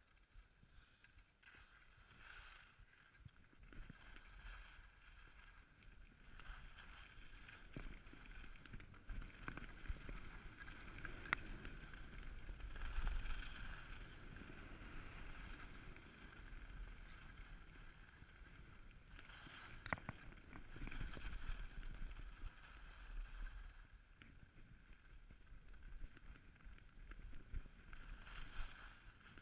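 Skis scraping and hissing over packed snow on a downhill run, rising and falling in waves as the skier turns, with wind rumbling on the microphone and a few sharp clicks.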